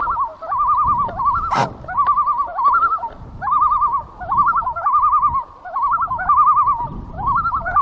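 An animal calling again and again in short quavering phrases, each about half a second long and about one a second, with a single sharp click about a second and a half in.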